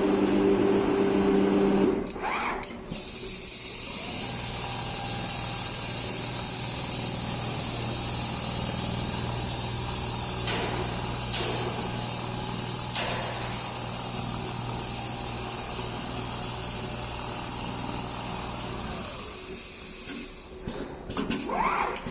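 Automatic large-panel sewing machine running steadily, a continuous high whine over a low hum, starting about three seconds in and dying away near the end.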